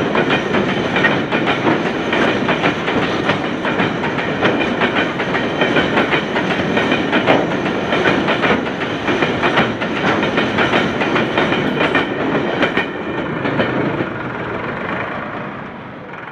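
Freight train wagons passing close by at about 56 km/h: steel wheels clattering over the rail joints in a fast, steady clickety-clack. It fades away near the end as the last wagon goes by.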